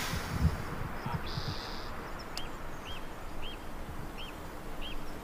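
Quiet open-air heathland ambience with a faint steady hiss and a few low thumps in the first second. From about halfway, a bird repeats a short rising-and-falling chirp about twice a second.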